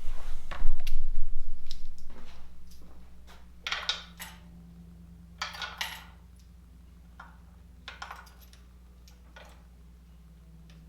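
Scattered light metallic clinks of hand tools and parts while spark plugs go back into an engine, a few separate clicks several seconds apart. A loud low rumble fills the first couple of seconds and fades away, over a faint steady hum.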